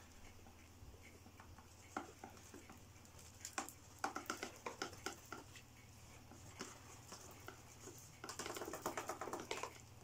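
Faint rustling and crackling of a vacuum cleaner's cloth filter bag being squeezed and shaken inside its clear plastic dust container, with dry debris ticking into a plastic tray. It comes in a few short bursts, the longest about halfway through and another near the end.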